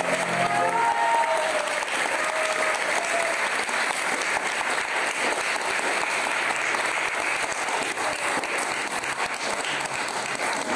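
Audience applauding with dense, steady clapping. The last held note of the soprano and choir dies away about a second in.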